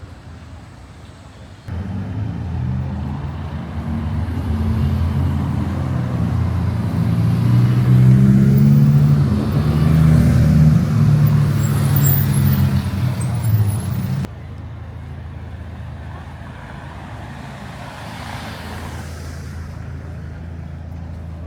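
A car engine running close by and low-pitched. It cuts in abruptly about two seconds in, grows louder to a peak around eight to eleven seconds, and stops abruptly about fourteen seconds in, leaving steady street traffic noise.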